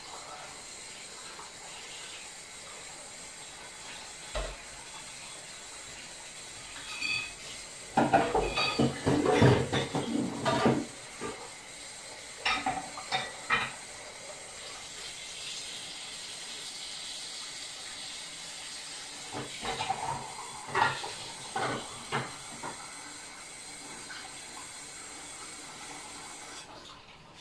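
Dishes and utensils clattering and clinking in the kitchen, in a few bunches of knocks, the loudest a third of the way in, over a steady hiss that stops near the end.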